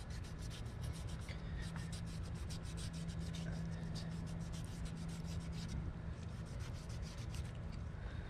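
Knife blade slicing and scraping along an alligator's hide as it is skinned, in quick repeated short strokes. A low steady hum runs underneath and stops about six seconds in.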